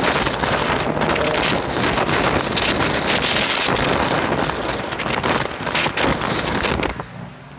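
Wind buffeting a phone microphone held out of a car window at highway speed, a loud rushing noise mixed with road and traffic noise. It drops sharply near the end.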